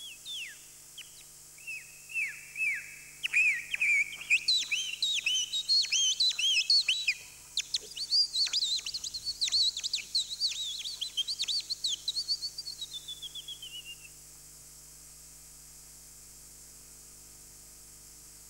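Bird-like chirping song: a rapid run of high whistled notes that each sweep downward, ending about thirteen seconds in with a falling trill. A faint steady hum runs underneath.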